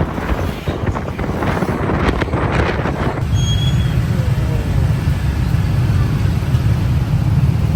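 Vehicle and road noise with wind buffeting the microphone for about the first three seconds, then giving way to a steady low rumble.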